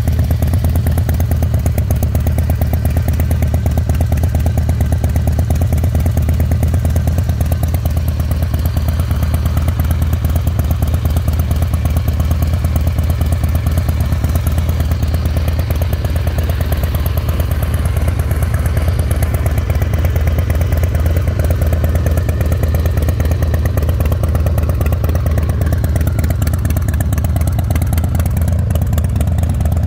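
The 2000 Harley-Davidson Night Train's Twin Cam 88B V-twin idling steadily, its exhaust pulsing evenly.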